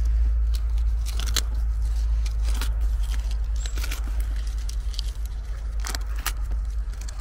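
Irregular crackles, snaps and crunches of twigs and woodland debris being stepped on or handled, over a steady low rumble on the microphone.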